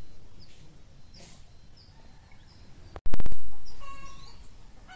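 Village ambience with small birds chirping and a chicken clucking about four seconds in. A loud low thump about three seconds in, dying away over about a second, is the loudest sound.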